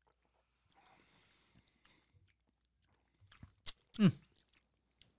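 People sipping a cocktail: a faint slurp, then a click and a short voiced 'mm' that falls in pitch about four seconds in.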